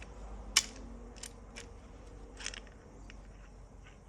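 Small, sharp clicks and taps of seatbelt retractor parts being handled and fitted together by hand, the sharpest about half a second in, then several lighter ones.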